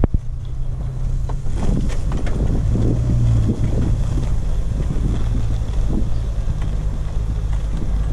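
Off-road 4x4's engine running steadily at low speed while the vehicle drives over rough grassy ground, with irregular knocks and rustles from the ride.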